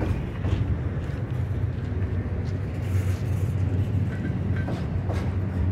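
Double-stack intermodal freight train of loaded well cars rolling past close by: a steady low rumble of steel wheels on rail, with scattered clicks and a couple of brief high squeaks near the end.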